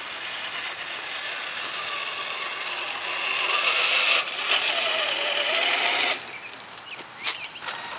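Electric motor and gearbox of a Tamiya Toyota Tundra RC truck whining as it crawls over the trail, the pitch shifting with the load. The whine stops abruptly about six seconds in, followed by a few sharp clicks.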